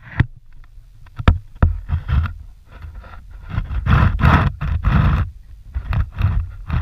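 Water splashing and slapping against the side of a clear kayak as a manatee surfaces right beside the hull, with a few sharp knocks on the hull; the splashy bursts are loudest about halfway through.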